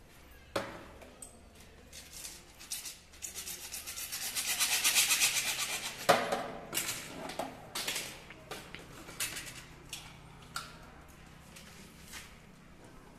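A hacksaw cutting through PVC conduit pipe: a quick run of back-and-forth saw strokes that grows louder for about three seconds, ending in a sharp snap as the cut goes through. Scattered light knocks of the pipe being handled follow.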